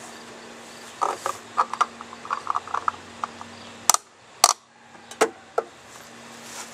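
A fuel filler cap being screwed on, its ratchet clicking in a quick run, then a few sharp snaps as the car's fuel door is pushed shut.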